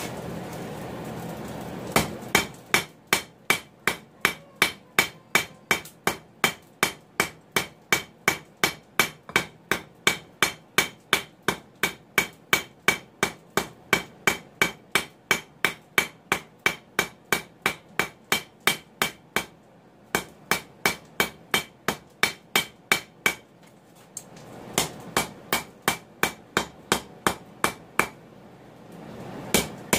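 Hand hammer striking a red-hot mild steel bar on an anvil in a steady run of about three blows a second, each blow ringing. This is the bar being flattened and drawn out to an even thickness for a forged handle. A steady rushing noise comes before the first blow, and the hammering pauses twice briefly.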